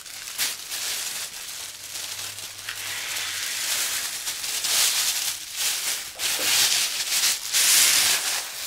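Crinkling and rustling of a Volcano vaporizer's clear plastic balloon bag as it is squeezed and drawn on through its mouthpiece: a dense crackling hiss that grows louder toward the end.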